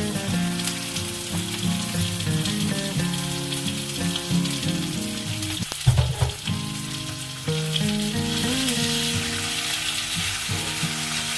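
Minced meat and onions sizzling as they fry in olive oil in a non-stick pan, with a sharp knock about six seconds in. Background music plays throughout.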